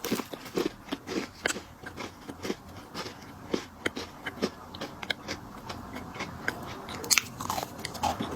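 A person biting and chewing a crunchy chocolate biscuit snack close to the microphone, with irregular sharp crunches several times a second.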